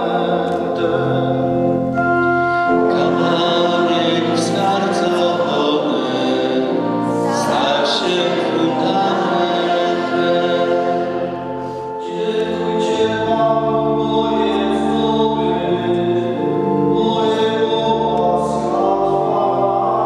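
Choir singing the sung responsorial psalm of the Mass, with sustained accompaniment under the voices and a short lull about twelve seconds in.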